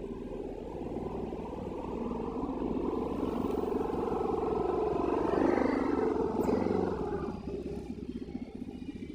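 A motor vehicle engine, likely a passing motorcycle, growing louder and then fading about seven seconds in.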